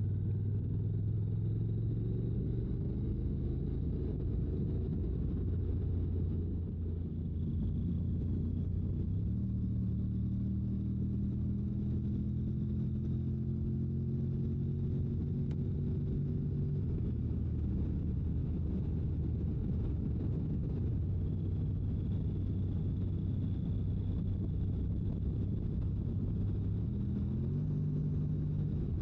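Honda NC750X parallel-twin engine running under way with a steady low rumble of wind and road, heard from the rider's seat; the engine note steps up in pitch about nine seconds in and again near the end.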